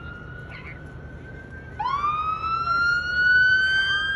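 Emergency vehicle sirens wailing. A fainter one holds a steady tone, then nearly two seconds in a much louder one starts low and rises slowly in pitch.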